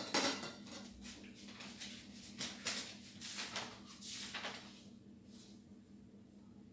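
A person moving close by: a few faint, irregular scuffs and rustles over a steady low hum.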